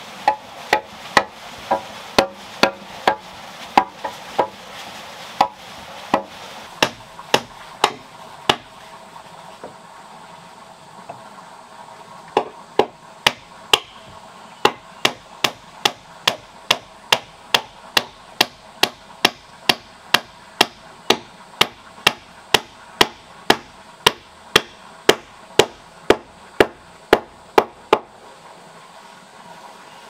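Repeated sharp blows of a hand tool striking wood, about two a second. They break off for a few seconds about a third of the way in, then resume and stop shortly before the end.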